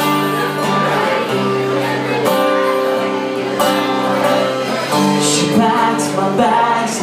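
Live band playing a song: strummed acoustic-electric guitar and electric bass over drums, with a man's voice singing in the later part.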